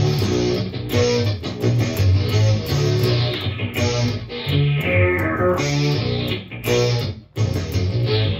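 Baritone electric guitar riffing through the Digitech Dirty Robot synth pedal, with repeated chunky low notes. In the middle a bright filter sweep falls in pitch, and near the end there is a short break in the playing.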